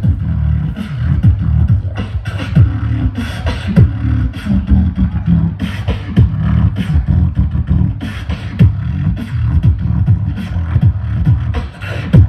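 Amplified beatboxing through a stage PA: a fast, steady rhythm of deep bass kicks and sharp snare-like clicks made with the mouth.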